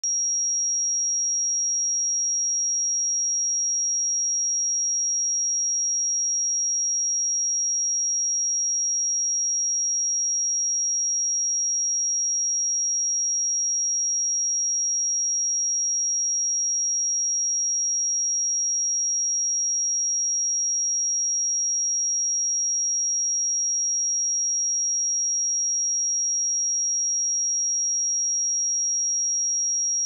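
Steady 5648 Hz pure sine-wave test tone, a single high-pitched whistle-like tone held at constant pitch and level, used to test speakers or headphones.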